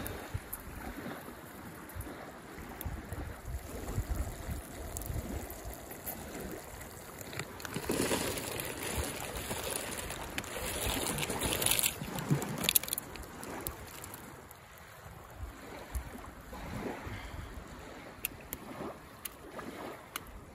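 Wind gusting across the microphone in uneven low rumbles, with a louder hissing stretch of noise about eight to twelve seconds in.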